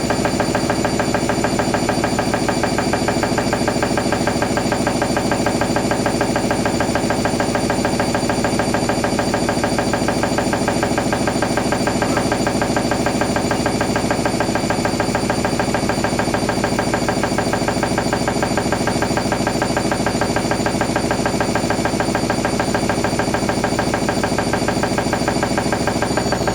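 Hoover NeXtra HNL3146 front-loading washing machine spinning its drum at speed, with a steady motor whine and a fast, even hum of the drum going round.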